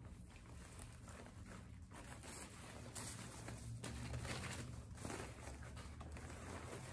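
Faint rustling and crinkling of wreath-making materials being handled and wrapped, over a low steady hum.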